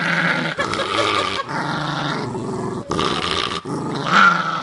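West Highland white terrier vocalizing in about five drawn-out, pitched calls with short breaks between them, the loudest near the end.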